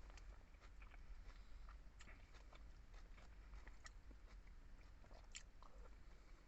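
Close-miked chewing and mouth sounds of someone eating pork sinigang: soft, irregular smacks and clicks.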